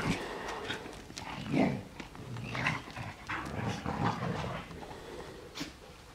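Siberian huskies making short, excited vocal sounds in an irregular string.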